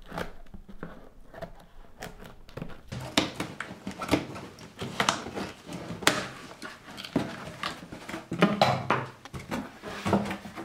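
Blade slitting packing tape along a cardboard box, heard as a run of sharp scrapes and scratches. Near the end the cardboard flaps are pulled open with rustling.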